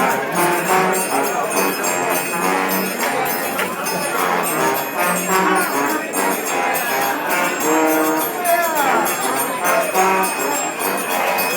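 Trombones playing a tune together in held, pitched notes, with a sliding note about eight seconds in.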